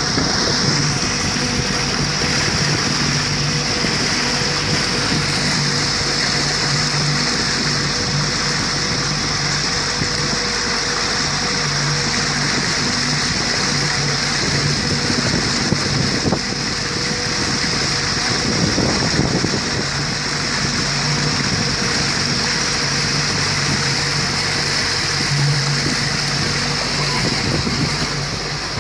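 Outboard motor of a small motorboat running steadily at cruising speed, with water rushing past the hull and wind on the microphone.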